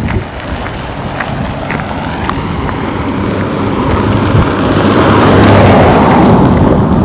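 Wind rumbling on the microphone, with the road noise of a vehicle growing louder and peaking about five to six seconds in.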